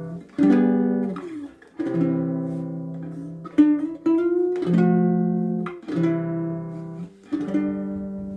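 Baritone ukulele strung with low-octave GCEA strings, playing a slow run of about six strummed chords, each left to ring and fade before the next. The low strings give a deep tone in place of the usual bright ukulele sound.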